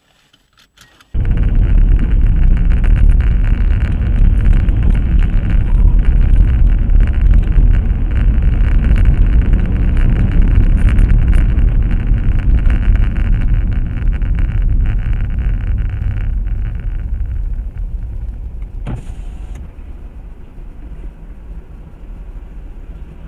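Road and engine noise of a moving car, picked up by a dashcam inside the cabin. It starts abruptly about a second in, then fades over the last several seconds as the car slows behind stopped traffic.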